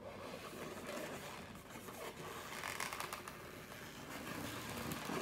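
Latex twisting balloon rubbing against itself and the hands as it is bent and twisted into a balloon dog's legs, a steady scratchy rubbing.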